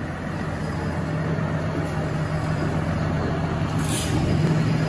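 A tractor's diesel engine running steadily at low revs.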